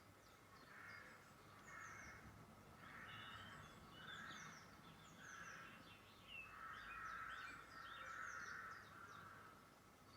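Faint wild birdsong coming from a Cat TV nature video on a laptop's speakers. Repeated harsh calls mix with many quick high chirps.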